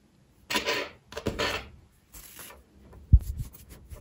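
Rustling and light scraping of wool-silk tweed yarn and knitted fabric as a blunt tapestry needle picks up stitches off the knitting needles and the yarn is drawn through, in a few short bursts. A single soft knock a little after three seconds in.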